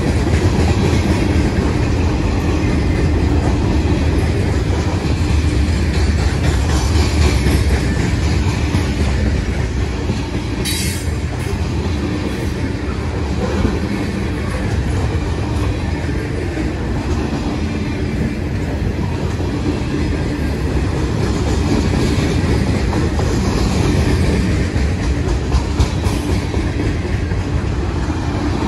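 Freight cars of a mixed train (covered hoppers, tank cars and boxcars) rolling steadily past, their steel wheels on the rails making a deep continuous rumble. A brief high-pitched screech comes about eleven seconds in.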